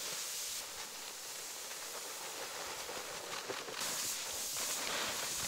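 Loose grain pouring from sacks onto a heap in a steady hiss, then hands rustling and scooping through the grain pile near the end.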